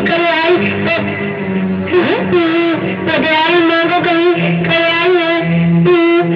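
Instrumental music: a wavering lead melody with vibrato over steady held bass notes that change every second or so.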